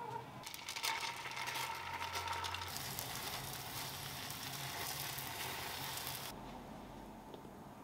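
Egg for a rolled omelette sizzling in a divided frying pan, with light clicks of the utensil against the pan as it is turned. The sizzling cuts off abruptly a little after six seconds in.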